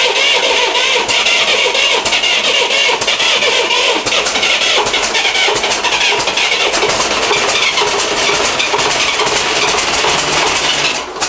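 Rebuilt turbocharged tractor diesel engine, running on a test stand and loud, with a dense rapid clatter. It has just caught on its first start since the rebuild, with the fuel system not yet fully bled.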